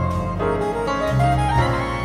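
Live jazz group playing: piano over an electric bass line, with a held melody note gliding upward near the end.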